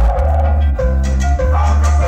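Loud Latin dance music with a heavy repeating bass line, a melody and percussion, played over a sound system's large speakers.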